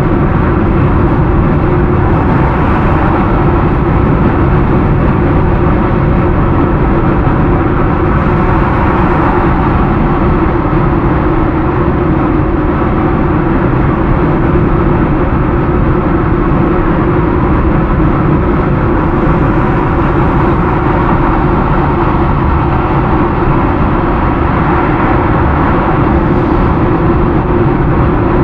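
Steady road noise of a car driving at highway speed, heard from inside the cabin: an even rush of tyre and engine noise that keeps up without a break.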